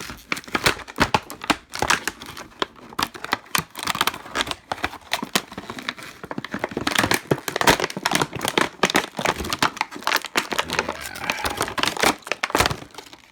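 Stiff plastic blister packaging of a driver bit set crinkling and crackling as it is pried and torn open by hand. A dense, irregular run of sharp crackles and snaps goes on throughout.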